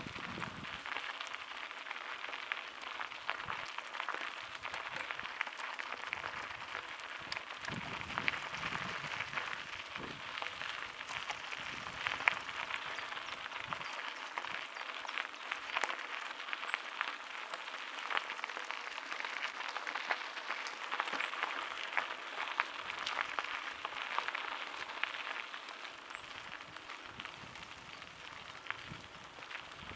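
Mountain bike riding over a gravel and dirt trail: a steady crackling crunch of tyres on loose stones, with scattered clicks and rattles.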